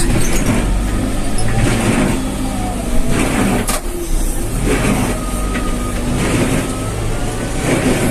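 Backhoe loader's diesel engine running under load while it pushes and spreads dirt, swelling and easing every second or so, with a sharp knock a little before four seconds in.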